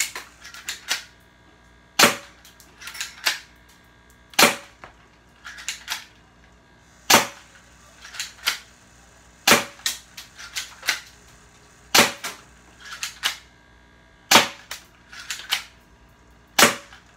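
BB pistol firing seven single shots at an even pace, about two and a half seconds apart, each shot followed by a few smaller clicks.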